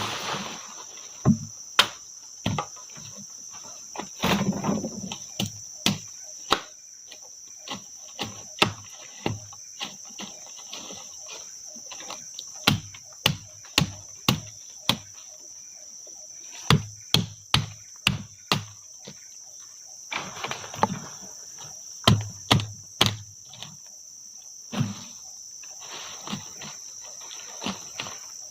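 Steady, high-pitched insect chorus over irregular sharp knocks, roughly one every second, some in quick clusters. There are a couple of short rustles, about four seconds in and again near twenty seconds.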